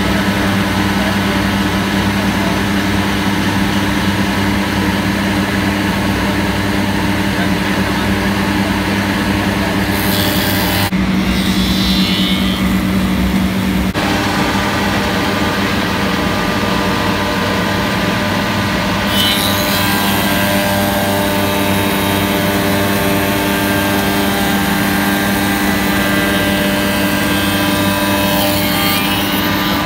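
SOUKUP Crafter window-and-door machining center running, its spindles giving a steady hum, as timber pieces are pushed through on the sliding table and machined. A harsher high hiss of cutting comes in briefly about ten seconds in, and again from about nineteen seconds until near the end.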